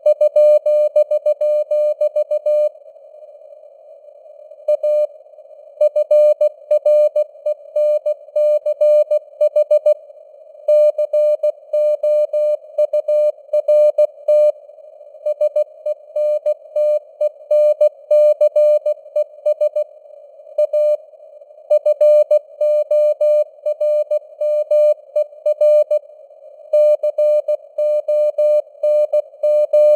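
Morse code (CW) at 16 words per minute: a single steady-pitched tone keyed in rapid dots and dashes, with short pauses between words, over a narrow band of simulated radio receiver hiss.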